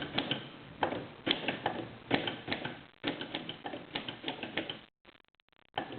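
Corona No. 4 portable manual typewriter being typed on: sharp key strikes in quick, uneven runs of several a second. The sound drops out briefly about five seconds in, then the clatter resumes.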